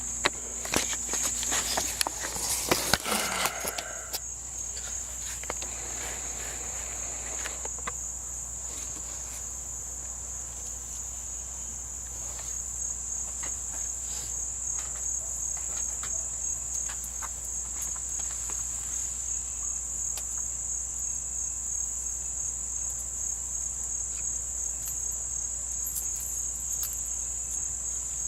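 Steady high-pitched insect chorus with a fine, fast pulse. During the first few seconds there is a cluster of knocks and clicks from handling metal parts and tools, and single light clicks now and then afterward.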